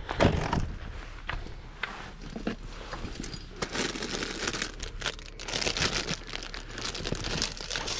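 A clear plastic bag crinkling and rustling as it is handled. A few light knocks come first, then from about three and a half seconds in the crinkling is dense and continuous.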